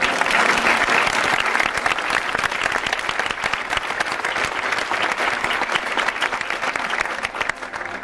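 Audience applauding, a dense clapping that is loudest in the first couple of seconds and dies down near the end.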